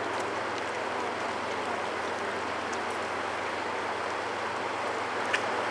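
Steady rushing of the Bow River's flowing water, with a faint low hum beneath it and a single faint click near the end.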